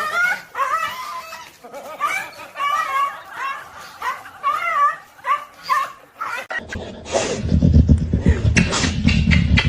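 A pet or domestic animal calling over and over in short, wavering, pitched cries. About two-thirds of the way in, this gives way to a loud, rapid low rumble.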